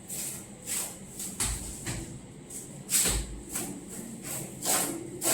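Handling noises: a run of irregular swishing, scraping strokes, with two dull thumps about a second and a half and three seconds in.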